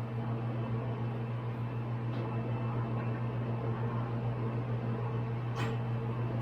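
Steady low electrical hum with a faint background hiss, broken by a few light clicks or knocks.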